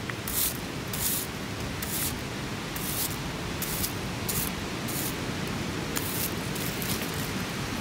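Soft brush swept over a half-buried glass bottle and the soil around it: short scratchy swishes, roughly one a second, over a steady hiss.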